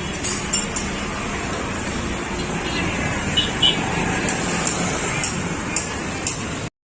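Steady outdoor traffic and street noise with occasional small clicks and knocks, broken by a brief drop to silence near the end.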